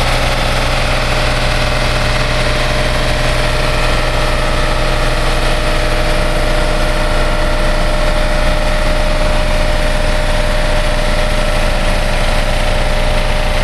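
Engines running steadily at low speed: a low, even drone with a steady high-pitched hum on top.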